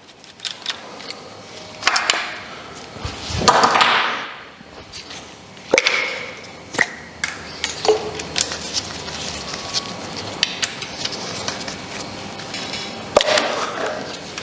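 Scattered clicks, knocks and scraping of hand tools and metal parts as the ignition coil pack for cylinders 1 and 4 is unbolted and lifted off the engine.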